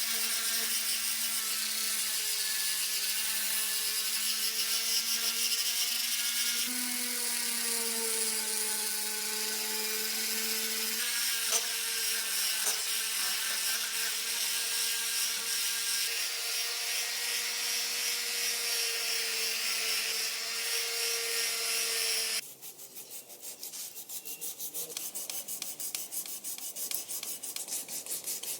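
A small handheld power tool running with a steady whine while grinding or sanding the model's metal body, its pitch dipping briefly under load now and then. About 22 seconds in it gives way to quieter, fast, even rubbing strokes of hand sanding.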